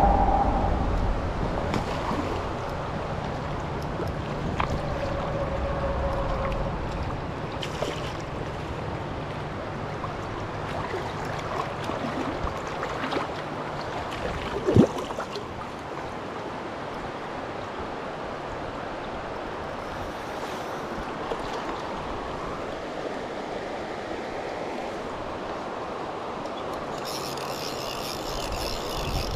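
Shallow creek running over rocks: a steady rush of water, with a low rumble in the first several seconds. Near the end comes the fast clicking of a fly reel as the line is wound or pulled off.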